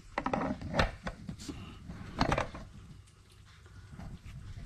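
Kitchen handling noise: a few knocks and clatters of trays and dishes being moved, loudest about two seconds in, then quieter shuffling.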